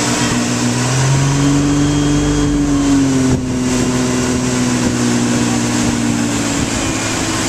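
Motorboat engine running at speed while towing, over the rush of the wake and wind on the microphone. The engine note rises about a second in and drops a little after about three seconds.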